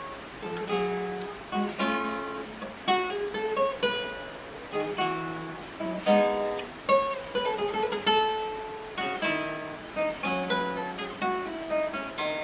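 Solo classical guitar played fingerstyle: a flowing line of plucked notes broken several times by full, loud chords that ring and die away.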